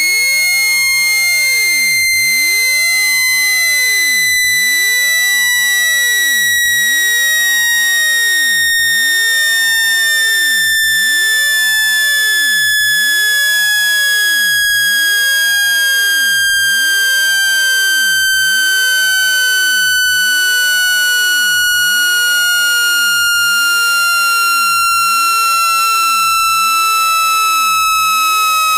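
Loud synthetic speaker-cleaning tone, a buzzy electronic whistle gliding slowly and steadily lower in pitch. It is played to shake water and dust out of a phone speaker.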